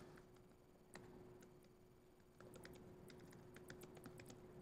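Faint typing on a laptop keyboard: one keystroke about a second in, then a quick run of keystrokes from about halfway on, over a faint steady hum.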